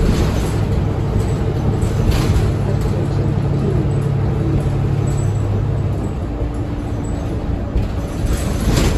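Interior sound of a 2020 New Flyer XD40 diesel transit bus under way: a steady engine and drivetrain hum over road rumble. The hum drops in pitch about five seconds in, and a few brief louder noises come near the start, about two seconds in, and near the end.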